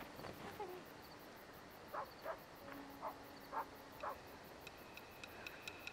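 Faint night ambience: crickets chirping, and a dog giving several short barks from about two seconds in. Near the end a thin high ringing note with quick ticks comes in.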